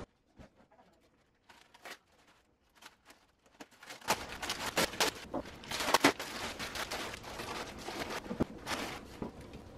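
Clear plastic wrapping crinkling and crackling as it is pulled off a boxed 3D printer. It starts about four seconds in after a few faint clicks and runs on continuously, with many sharp crackles.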